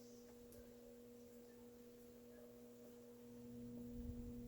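Near silence: room tone with a faint steady hum, one low tone and its octave, and a little low rumble near the end.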